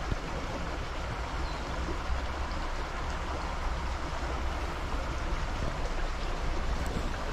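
River water flowing and rushing steadily, with a low rumble beneath it.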